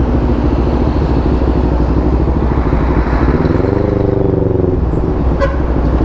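CFMoto 400NK motorcycle's parallel-twin engine running under way in traffic. Its pitch rises and falls back once about three to five seconds in, and there is a short click about five and a half seconds in.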